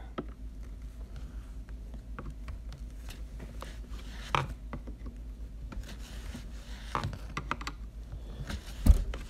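Screwdriver turning a dishwasher's threaded leveling foot to raise that side: scattered small scrapes and clicks over a steady low hum, with a louder knock near the end.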